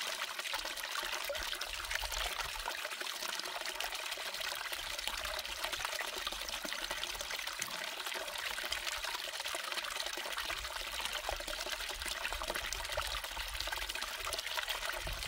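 Steady trickle of water running down a small recirculating gold sluice over its green riffle mat as paydirt is fed in.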